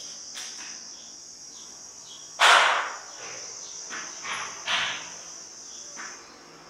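Chalk scraping on a blackboard as a letter is written: one loud stroke about two and a half seconds in, then several shorter, fainter strokes. A steady high-pitched chirring runs underneath.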